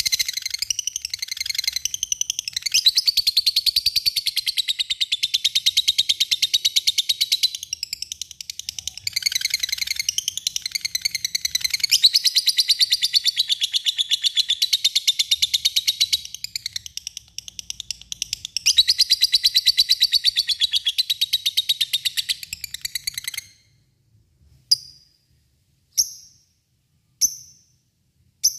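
Lovebird 'ngekek': a long, unbroken chatter of rapid, high, evenly repeated chirps, the call used to lure other lovebirds into answering. About three-quarters of the way in it breaks off, and a few single sharp chirps follow about a second apart.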